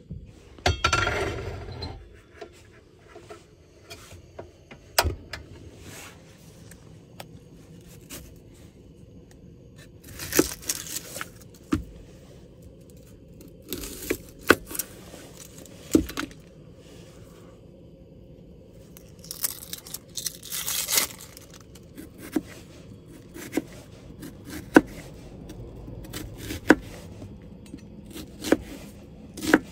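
Chef's knife cutting an onion on a plastic cutting board: scattered sharp knocks of the blade against the board, with a few bursts of rustling and scraping in between.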